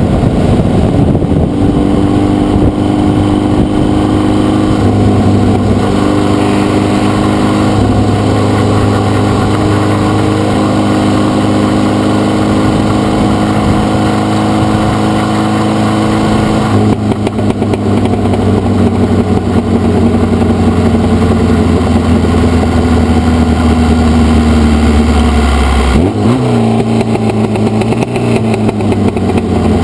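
Formula Vee race car's air-cooled Volkswagen flat-four engine, heard from the cockpit, running hard with a steady note. It steps down in pitch about two-thirds of the way through, and near the end it dips sharply and settles lower as the car slows into the pit lane.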